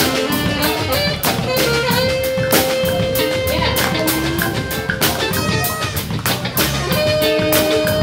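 Live band playing: electric guitar with a drum kit keeping a steady beat, cymbals and held instrumental notes over it.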